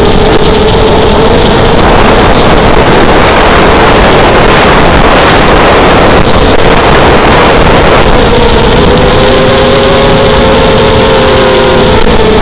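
Racing quadcopter's brushless motors and propellers whining in flight, the pitch wavering up and down with the throttle. From about two to eight seconds in, a louder rush of air noise covers the whine.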